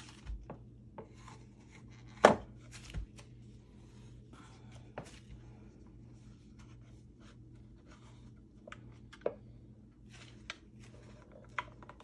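Scattered plastic-and-metal clicks and knocks from a Kat Sense XXL rat trap handled and set with gloved hands, its spring bar lifted and latched into the set position. The loudest knock comes a little over two seconds in.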